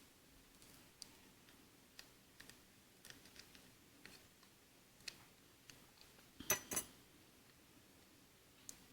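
Faint scattered clicks and taps of a small tool working the cracked glass off a Samsung Galaxy S3, prying it loose from the glue, with a louder pair of sharp clicks about six and a half seconds in.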